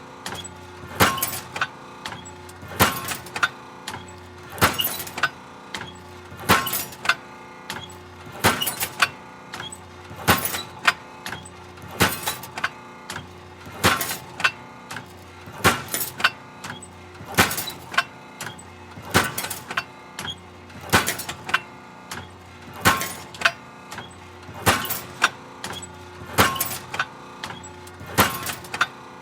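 Hydraulic metal shear cycling steadily: a sharp pound about every two seconds as the blade comes down, each with a smaller knock beside it, over a continuous hum from the machine.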